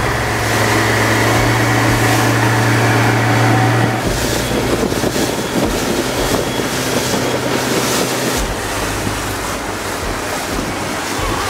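Outboard motor of an inflatable boat running steadily at speed over rushing water. About four seconds in, the engine hum weakens, and wind buffeting the microphone and water noise take over.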